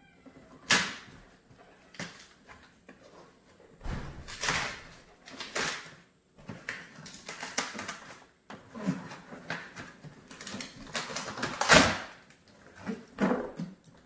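A cardboard box being opened by hand: irregular scrapes, rustles and knocks of cardboard flaps and packing being pulled out.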